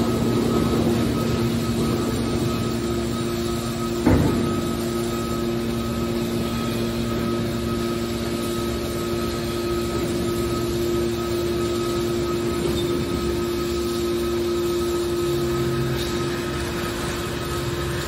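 Hydraulic scrap metal baler running: the steady hum of its hydraulic power unit as the cylinders swing the hinged lid, with one sharp metal clunk about four seconds in. The hum's pitch shifts a little after about twelve seconds as the load on the cylinders changes.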